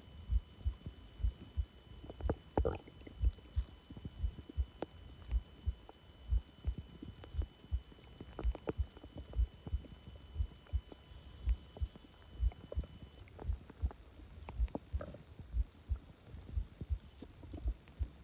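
Human stomach growling: a run of short, low thumps about two a second, broken by a few longer gurgles.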